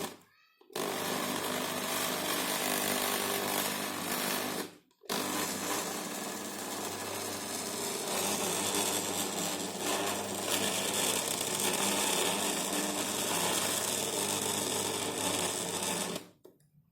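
Electric food chopper's motor running with a steady hum as it kneads wheat-flour dough in its bowl. It is switched off briefly just after the start and again about five seconds in, then stops near the end, with the dough now almost fully kneaded.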